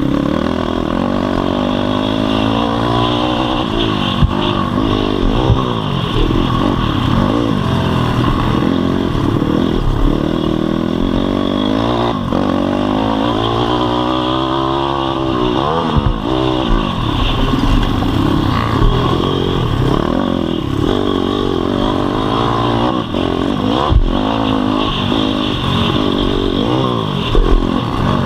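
Single-cylinder four-stroke pit bike engine being ridden hard, its revs repeatedly rising and falling through the gears and corners, with a few sharp thumps from the rough dirt track.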